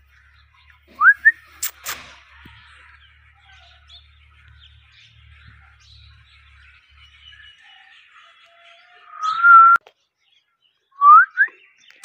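Rose-ringed parakeet giving short rising whistles about a second in and again near the end, with a louder held whistle shortly before the end. Sharp clicks follow the first whistles.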